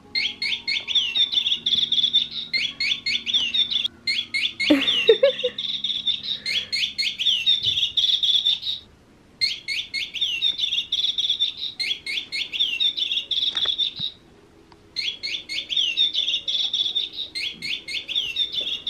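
A battery-powered plush bird cat toy chirping electronically: rapid, high tweets repeated in long runs, breaking off briefly about nine seconds in and again near fourteen seconds.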